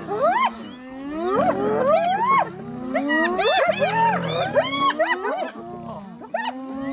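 Spotted hyenas calling excitedly while contesting a lioness at a carcass: many overlapping rising and falling yelps and giggles, with low growls underneath that die away about five seconds in.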